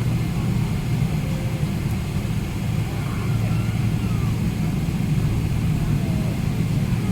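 Steady cabin noise inside a Boeing 777-300ER on the ground, a low hum from its GE90 engines at idle and the cabin air supply, with faint voices in the background.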